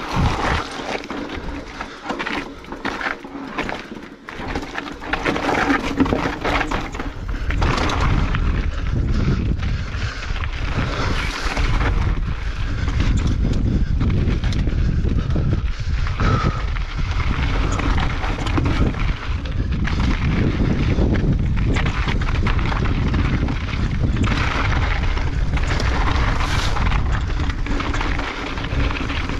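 Mountain bike descending a rocky trail: tyres crunching and clattering over loose rock and the bike rattling. Heavy wind rumble on the camera microphone builds about seven seconds in and stays loud.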